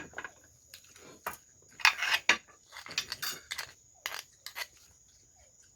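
Close-up eating sounds: irregular short clicks and clinks of cutlery against dishes, with chewing.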